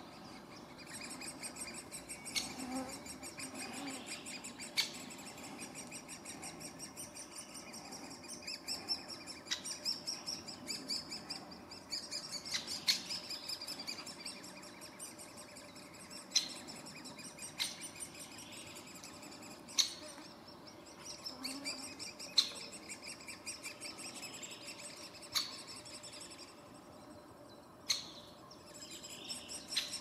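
Great spotted woodpecker nestlings begging from inside the nest hole in a continuous, fast, high chatter. Sharp single call notes cut through every two to three seconds.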